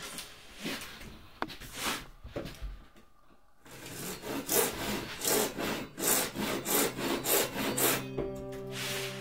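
Japanese pull saw cutting an acrylic (Plexiglas) sheet by hand. After a few seconds of light knocks and rustles, it settles into about seven even, rasping strokes, roughly one and a half a second, cut gently without much pressure to keep the acrylic from cracking. Music with held notes comes in near the end.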